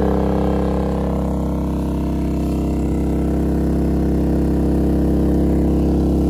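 Genmax GM3500iAED inverter generator running steadily on propane under a load of about 1,900 watts, an even engine hum that turns a little softer and duller about a second in.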